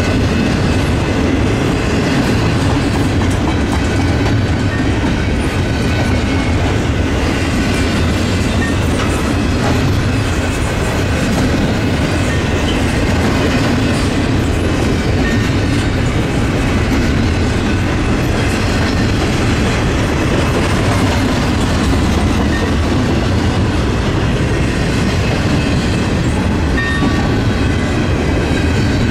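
BNSF double-stack intermodal freight train's container well cars rolling past, a steady, loud noise of steel wheels running on the rails.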